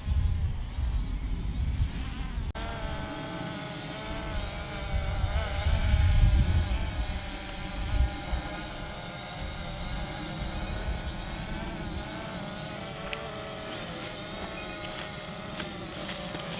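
SJRC F11 quadcopter drone's propellers buzzing in flight, the pitch wavering as the motors adjust. The buzz comes in more strongly a couple of seconds in. Gusty wind rumbles on the microphone.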